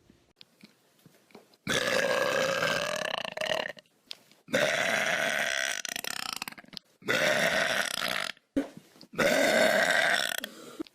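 Long, loud human burps: four in a row after a quiet first second and a half, each lasting one to two seconds with a wavering pitch.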